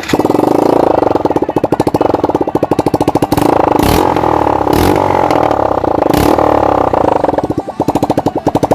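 KTM Duke 200's single-cylinder engine running close by, its exhaust beats coming as a fast, even pulsing, with a few short puffs of noise over it.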